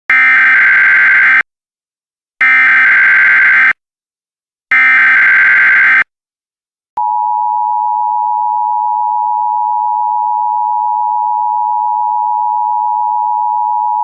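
Emergency Alert System tones: three short bursts of SAME header data, then the steady two-tone EAS attention signal held for about seven seconds, marking the start of an alert message.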